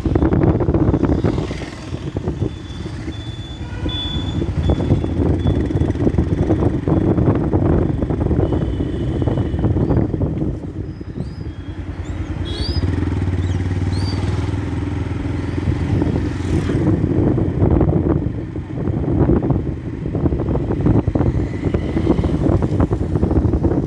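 Yamaha FZ-S's single-cylinder engine running under way, its note swelling and easing off several times with the throttle.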